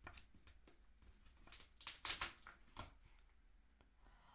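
The shell of a steamed snow crab crackling and snapping as it is broken apart by hand: a string of sharp cracks, the loudest about two seconds in.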